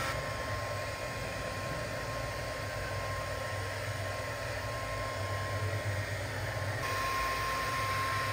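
Handheld electric hair dryer running continuously: a steady rush of air with a thin whine over it. The air noise turns hissier and the whine stronger near the end.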